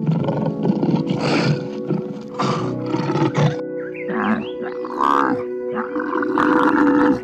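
A big cat giving a string of roaring calls over steady background music.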